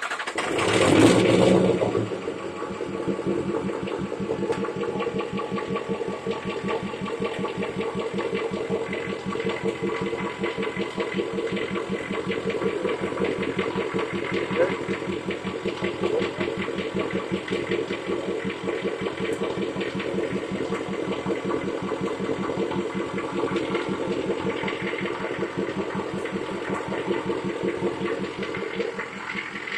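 2004 Ford F-350's 6.0 L Power Stroke V8 turbo-diesel running through a 5-inch straight-back exhaust: it flares up in the first two seconds after starting, then settles into a steady idle with a rapid, even diesel clatter and a constant turbo whistle over it.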